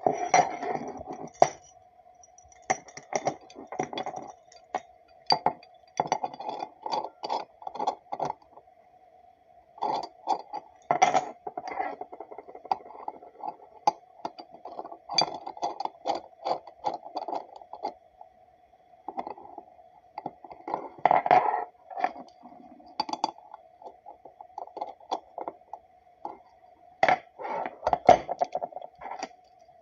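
Metal clinking and scraping of a universal wrench being fitted onto and worked around a bolt head, in irregular bursts of clicks, over a faint steady hum.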